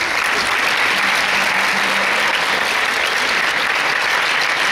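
A large audience applauding: dense, steady clapping that holds at an even level.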